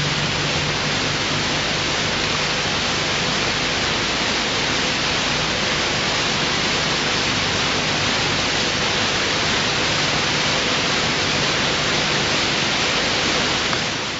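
A steady, even rushing noise like static or hiss, with faint held tones of music dying away under it at the start. It cuts off suddenly at the very end.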